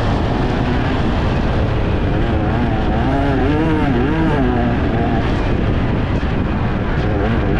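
Enduro dirt bike engine revving up and down as it is ridden hard over rough ground. Its pitch rises and falls repeatedly over a steady rough rumble.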